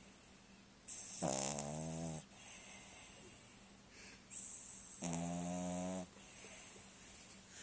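A dog snoring in its sleep: two long, rasping snores about four seconds apart, each lasting about a second, with softer breathing between them.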